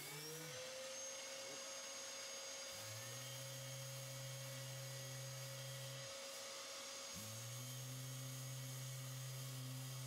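Mirka Deros electric random-orbital sander, with a 3 mm orbit and a 180-grit disc, spinning up at the start and then running with a steady whine. A deeper hum drops out twice and comes back.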